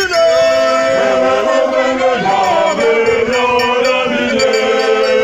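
A choir singing in harmony, several voices holding long notes together and moving in pitch a few times, breaking off near the end.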